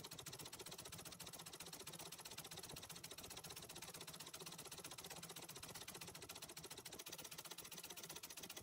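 Antique treadle sewing machine stitching continuously at a fast, even pace, its needle mechanism clicking rapidly as it does free-motion embroidery in a hoop.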